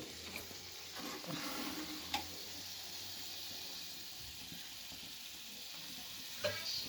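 Kebab sizzling as it cooks: a steady hiss with a few small pops.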